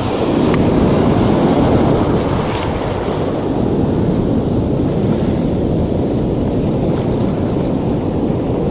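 Ocean surf breaking and washing up the beach, a dense steady rush that swells in the first couple of seconds, with wind buffeting the microphone.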